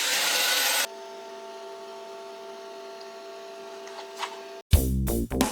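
A power tool's motor running loudly, cut off abruptly about a second in, leaving a steady hum. Near the end, music with drums and guitar starts.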